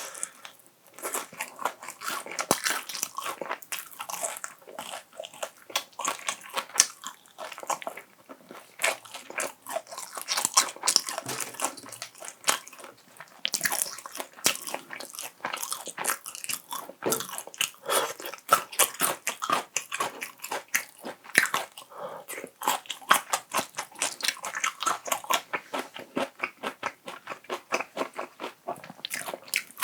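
Close-miked chewing with crisp, irregular crunching, typical of biting into crispy fried chicken (Kyochon Honey Combo).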